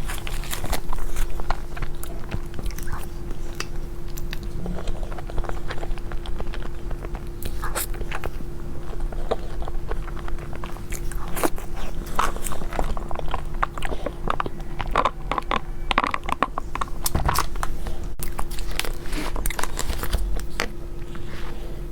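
Close-miked eating sounds of a person biting and chewing dessert, with many small crunches and wet mouth clicks coming irregularly.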